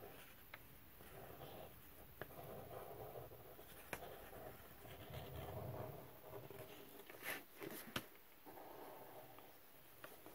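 A felt-tip marker drawing on crumpled paper-bag paper: soft, faint scratching in short stretches of strokes, with a few light ticks. Two sharper rustles or taps come about two-thirds of the way through.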